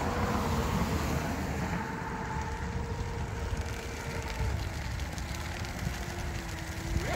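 Pro Boat UL19XR radio-controlled outrigger boat running flat out, its electric motor giving a steady high whine. The whine drops to a lower pitch about five seconds in, then rises sharply near the end. Wind rumbles on the microphone underneath.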